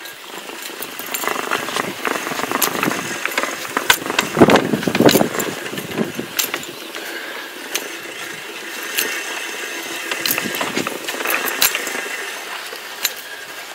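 Troy-Bilt Revolution Quiet Cut 18-inch manual reel mower being pushed across a lawn, its spinning reel blades whirring and cutting grass with many sharp clicks. The sound grows louder about four to five and a half seconds in.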